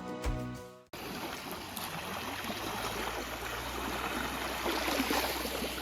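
Background music that cuts off about a second in, then a steady wash of river water along a stony shore.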